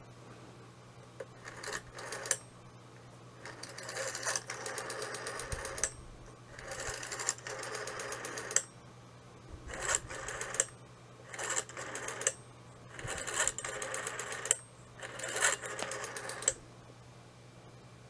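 Old rotary telephone dial being dialled digit after digit. Each digit is a short scrape as the finger winds the dial round, then a run of rapid, even clicks as it spins back, about seven times in all over a faint low hum.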